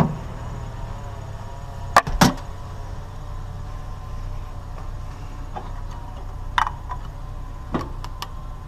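Small pieces of scrap being handled and sorted by hand, with two sharp loud clicks about two seconds in and a few lighter knocks later, over a steady low mechanical hum.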